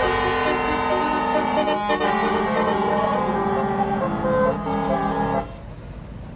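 Basuri telolet multi-tone air horn on a tour bus playing a quick melody, several notes sounding together and changing every fraction of a second. It cuts off suddenly about five and a half seconds in, leaving the low rumble of the bus engine.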